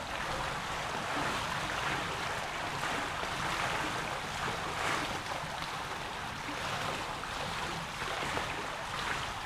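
Swimming-pool water lapping and splashing as people swim, heard as a steady rushing noise.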